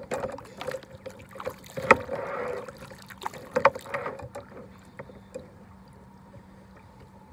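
Kayak paddle strokes: water splashing off the blade, with a few sharp knocks, the loudest about two seconds in. The strokes stop a little past halfway, leaving only a faint steady hum.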